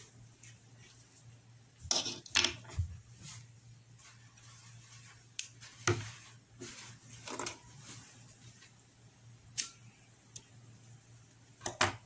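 Scattered light clicks and snips of scissors cutting crochet yarn and small tools being handled and set down on a table, with the loudest cluster about two seconds in.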